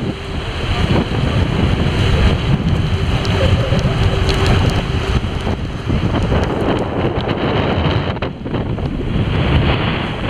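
Heavy wind buffeting the microphone on the deck of a moving boat, in uneven gusts, over the rush of water along the hull.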